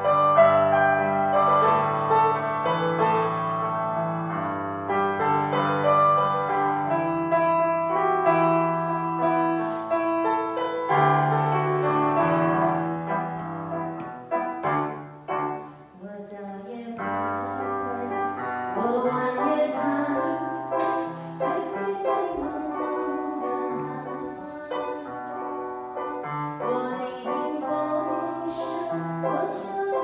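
Yamaha electronic keyboard playing a melody over a held bass accompaniment. After a short dip in loudness about halfway through, a woman's voice sings along to her own playing.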